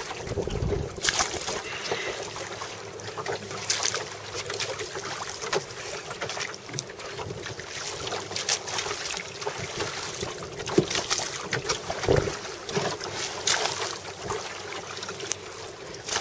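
Choppy seawater splashing and slapping irregularly against the wooden hull of a rowed Hankins lifeguard boat, with wind buffeting the microphone.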